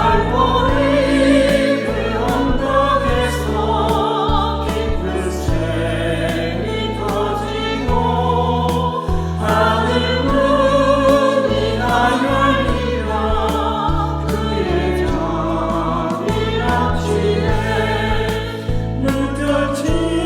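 Church choir singing an anthem in Korean, many voices together, over instrumental accompaniment with sustained bass notes.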